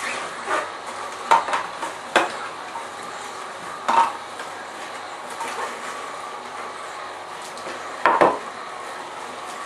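Juissen slow juicer running with a steady hum while it crushes vegetables. Several sharp plastic knocks come from the pusher and produce going into the feed chute, the loudest about four seconds in and again near eight seconds.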